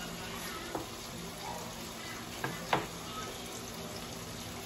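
T-bone steaks sizzling steadily in a grill pan on a gas hob, with a few sharp knocks from the cutting board beside it, the loudest about two and a half seconds in.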